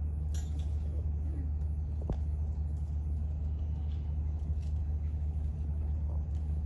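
Steady low rumble, with a sharp click about two seconds in.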